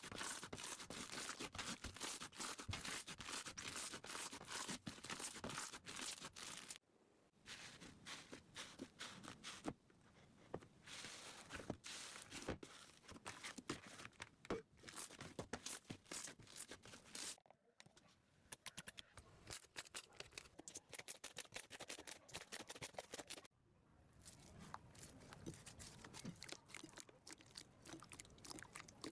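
Slime being pressed, squeezed and stretched by hand, giving a dense run of small crackles, pops and squishes. The sound breaks off abruptly three times as one clip gives way to the next.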